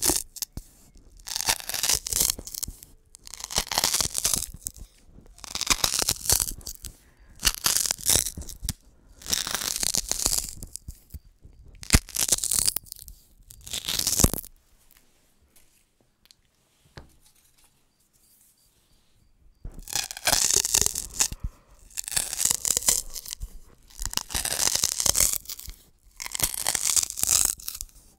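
Dried wheat-stalk drinking straws handled close to the microphone in repeated crackly strokes, each lasting about a second. The strokes come about every two seconds, stop for roughly five seconds about halfway through, then resume more densely.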